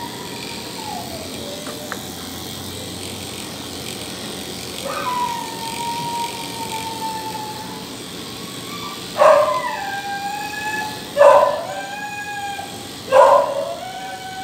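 A dog whining in long, drawn-out tones, then about two-thirds of the way in giving loud cries every two seconds or so, each starting sharply and sliding down in pitch: a dog protesting while being held for grooming.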